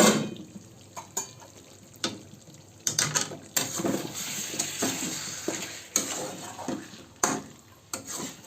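Chicken curry being stirred in a metal pan: a spoon clanks and scrapes against the pan, loudest at the very start, with a sizzle of frying between about three and a half and six seconds in.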